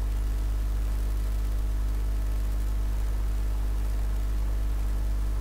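A steady low hum with fainter evenly spaced overtones above it and a faint hiss, unchanging in level.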